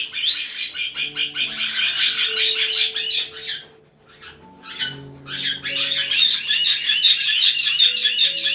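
Caique parrots squawking and chattering in rapid, repeated shrill calls. The calls break off briefly about halfway through, then resume louder.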